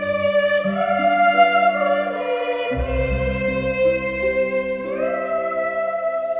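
Music: slow, sustained chords held and changing every second or two, choir-like, with a deep bass note coming in about three seconds in.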